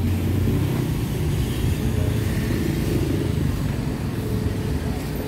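Street traffic: car and motorbike engines running at low speed in slow traffic, a steady low engine sound.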